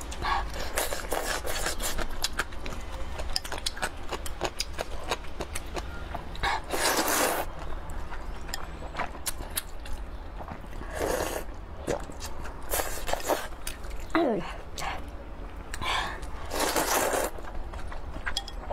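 Rice noodles being slurped from a spicy soup, with several long slurps (the biggest about 7, 11 and 17 seconds in) and wet chewing and mouth clicks between them.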